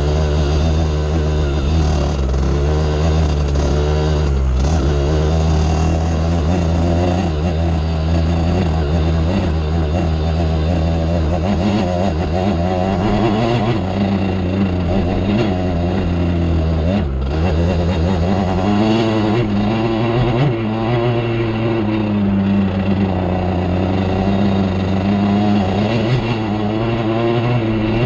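Off-road vehicle engine running continuously while riding, its pitch wavering up and down with the throttle, with a brief dip about two-thirds of the way in.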